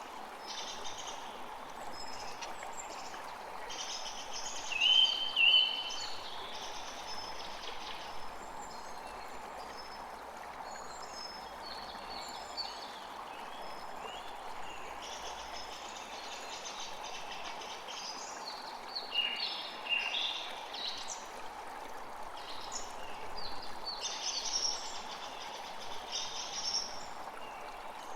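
Several birds chirping and calling over a steady wind hiss, with two loud short calls about five seconds in and a busier run of calls around twenty seconds in.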